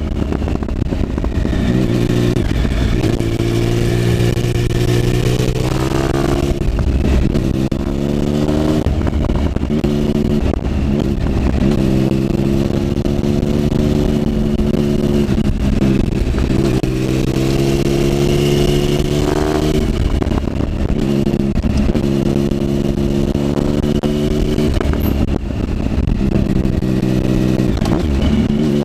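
Triumph Speed Triple's three-cylinder engine under hard riding, its pitch climbing through each pull and dropping away between them, about seven times in quick succession, as it accelerates out of one bend after another and backs off for the next.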